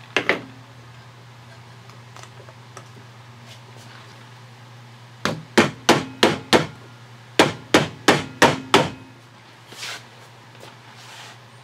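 Rubber mallet tapping the lid shut on a metal tin of paste wax, in two runs of five quick strikes about a third of a second apart. Two sharp knocks come right at the start.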